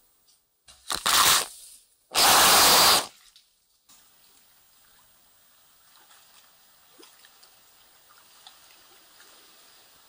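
Two short, loud gushes of water, about a second in and again about two seconds in, followed by faint trickling and drips.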